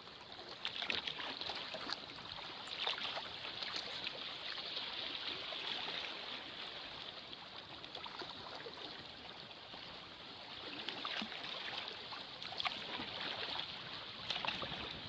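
River water running and splashing against the hull of a sea kayak as it moves with the current, with short irregular splashes throughout.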